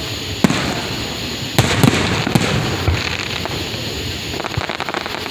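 Aerial fireworks bursting: several sharp bangs, then a run of rapid crackles near the end.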